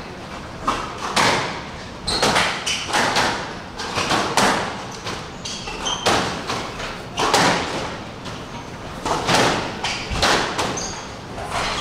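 Squash rally: the ball struck by racquets and smacking off the court walls about once a second, each hit echoing in the court, with short squeaks of shoes on the wooden floor.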